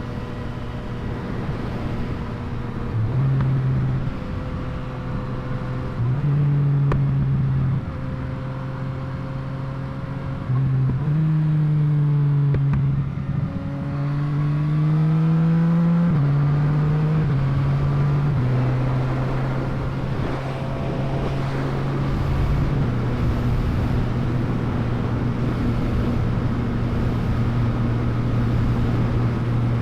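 Yamaha MT-09's inline three-cylinder engine running, its revs stepping up and back down several times, with one longer steady climb in revs through the middle, over a rushing noise.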